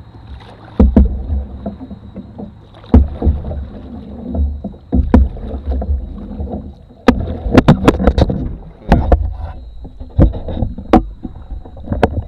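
Irregular knocks and thuds of paddling a canoe, paddles bumping the hull and stirring the water, picked up through the camera clipped to the boat.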